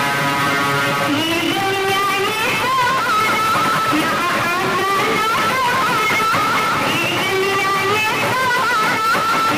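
Loud music played through a DJ sound system's speaker towers: a wavering, gliding lead melody over a dense, steady backing.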